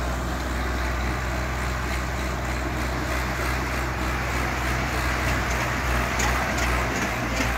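Diesel tractor engines running hard and steady under full load as two tractors pull against each other in a tug-of-war, with a constant low engine drone.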